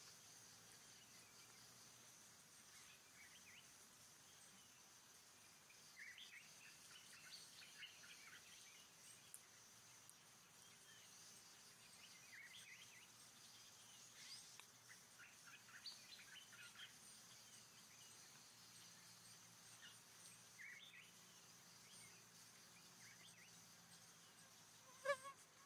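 Faint tropical forest ambience: a steady high-pitched insect drone with scattered short bird chirps. Near the end, one brief louder call slides down in pitch.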